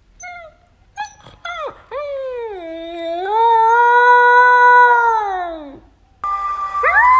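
Husky puppy howling: a few short yips and whimpers, then one long howl that dips in pitch, rises and holds, and falls away at the end. Near the end a second puppy's howl starts, rising in pitch.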